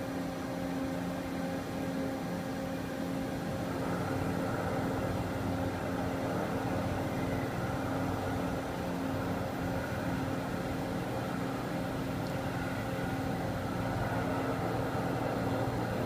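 CNC milling machine face-milling Inconel with a coated carbide insert cutter under flood coolant: a steady machine hum with a few low steady tones over a dense hiss of coolant spray and cutting. The sound grows fuller about four seconds in.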